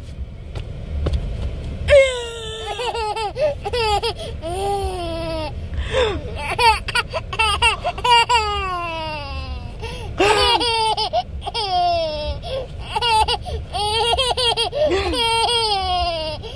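Toddler laughing hard in repeated high-pitched bursts of belly laughter, starting about two seconds in.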